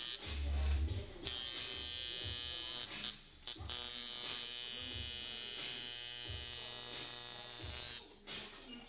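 Tattoo machine buzzing in runs as it is switched on and off: one run of about a second and a half, two short blips, then a steady run of about four seconds that stops near the end.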